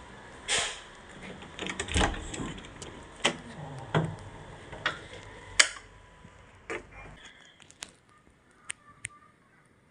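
Irregular knocks and slaps about once a second, footsteps in rubber slide sandals on a hard floor mixed with knocks from the phone being handled, dying away after about seven seconds.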